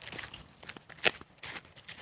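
Footsteps on a woodland trail: irregular crunching steps, with one louder crunch about a second in.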